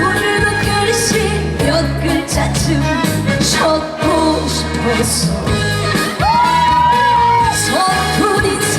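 A trot song performed live: a woman singing over a backing band track with a steady beat. She holds one long high note about six seconds in.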